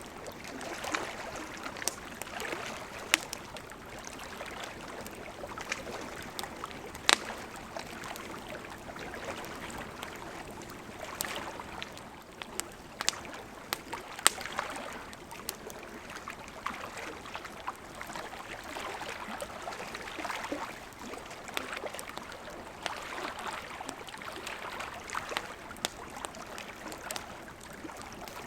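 Wood campfire crackling, with irregular sharp pops, the loudest about 3, 7 and 14 seconds in, over small lake waves lapping at the shore in gentle swells.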